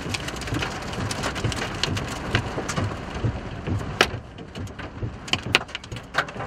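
Rain striking a vehicle's windshield and body, heard from inside the cabin: a steady rushing wash with many scattered sharp drop hits, the loudest about four seconds in.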